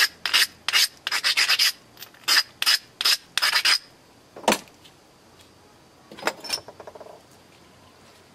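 Edge of a chert flake being abraded with a stone abrader, about a dozen quick scraping strokes that prepare the edge for pressure flaking. A single sharp click comes about halfway through, and a few fainter scrapes follow.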